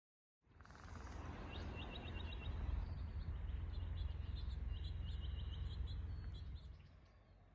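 Small birds chirping in quick repeated trills over a steady low rumble that eases off near the end.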